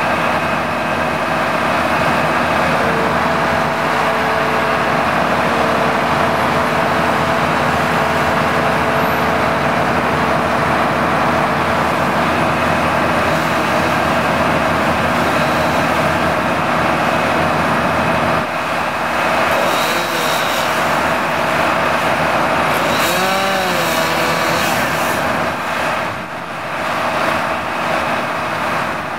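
Bucket truck's engine running steadily to power the boom. About three-quarters of the way through, an engine briefly rises and falls in pitch.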